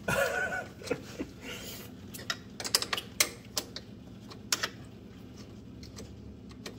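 Small 10 mm hand wrench clicking and tapping against the fuse-box mounting nuts and bracket as they are loosened by hand: scattered sharp metallic ticks, the loudest about two and a half to three and a half seconds in.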